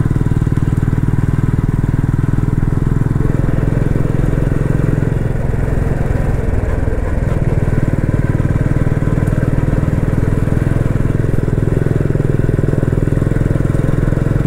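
Motorcycle engine running steadily under way, a loud, deep, rapidly pulsing exhaust note that holds even throughout.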